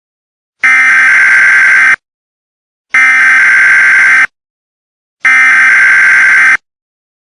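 Emergency Alert System SAME header tones: three harsh, buzzy digital data bursts, each a little over a second long and about a second apart, the coded header that opens a new alert.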